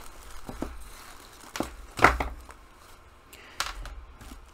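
Clear plastic wrapping crinkling and a satin drawstring bag rustling as a plastic-wrapped doll is pulled out of the bag and laid down. The handling comes in several short rustles, the loudest about two seconds in.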